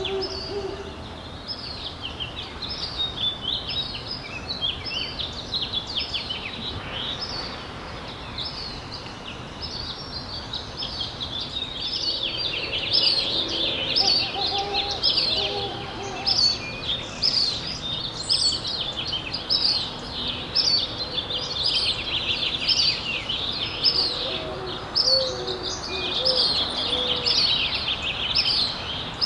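Birds calling: many short, high, down-slurred notes overlapping one another, growing denser and louder about halfway through, with a few lower notes among them.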